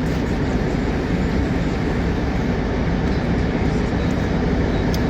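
Steady low rumble of a running vehicle, even and unbroken, with no distinct events.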